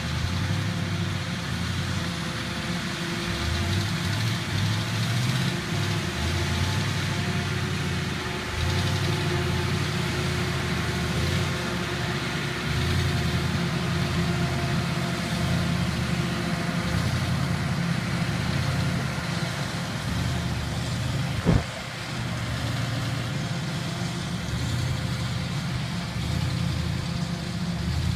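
Engine of heavy farm machinery harvesting silage, running steadily with a low, uneven rumble. A single sharp click comes about three quarters of the way through.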